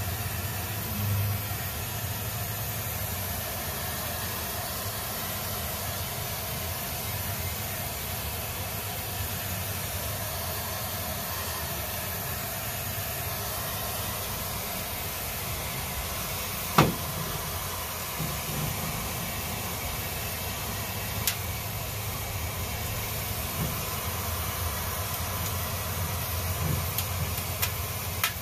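Compressed-air duster can held upside down and spraying a steady hiss of liquid propellant through its straw, freezing the asphalt sound-deadening mat on a car's floor pan so it can be broken off. A single sharp click sounds once, well into the spray.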